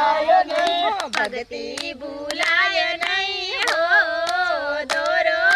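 A small group singing a Gujarati devotional song (bhajan) to the goddess Dashama, with hands clapping in time.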